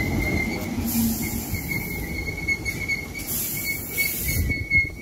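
Class 313 electric multiple unit moving past close by: wheels rumbling and knocking over the rails under a steady high-pitched whine, with two spells of hiss, about a second in and again from about three seconds.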